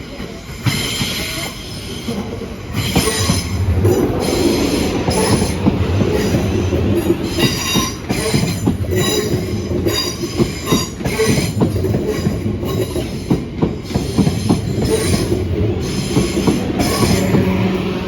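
Train passing close by over the crossing, with a steady rumble and clicking wheels, and its wheels squealing against the rails in repeated high-pitched bursts.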